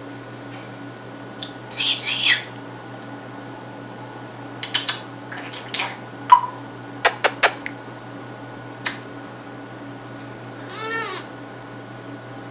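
African grey parrot vocalising in short, scattered bursts: a harsh squawk, a quick run of sharp clicks, a chirp and a whistled call that bends in pitch, with a steady hum underneath.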